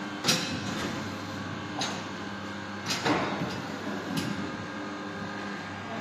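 Ride-on toy excavator running with a steady mechanical hum as its arm and bucket move, with several sharp clatters as the bucket digs into and drops black play pieces in the bin, the loudest a little after three seconds in.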